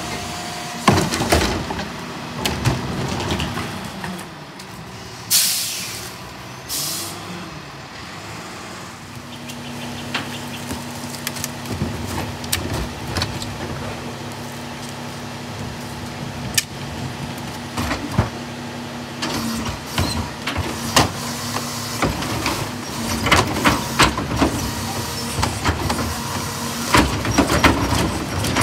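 Freightliner M2 106 garbage truck's diesel engine running while its Heil DuraPack 5000 rear loader works. Plastic carts bang and clatter against the hydraulic cart tipper as they are dumped into the hopper, with two short hisses of air about five and seven seconds in.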